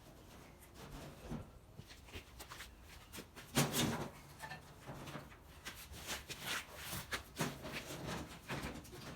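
Scattered knocks, clicks and rattles of hand tools and parts being handled during tractor repair work, with the loudest knock about three and a half seconds in.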